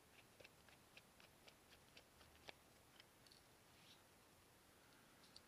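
Faint quick clicks, about four a second, from a precision T1 Torx screwdriver turning a tiny screw in a BlackBerry Z10's frame, stopping about halfway through.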